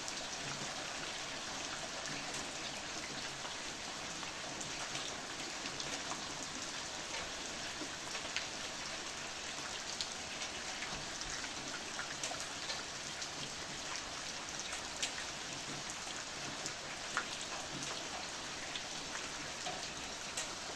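Steady rainfall: an even hiss of rain with many separate drops ticking on a surface close by.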